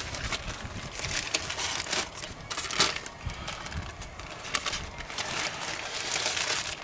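Parchment paper crinkling and rustling as it is handled and pulled out from under a bacon-wrapped roll on a grill grate, with scattered irregular crackles.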